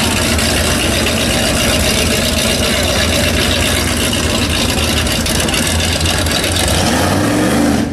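Supercharged engine of a 1941 Willys pro street coupe running steadily as the car rolls off slowly, with a brief rev that rises in pitch near the end.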